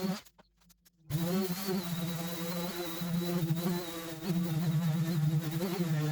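Power sander running with a steady buzz on a metal toolbox. The sound cuts out briefly just after the start, then resumes.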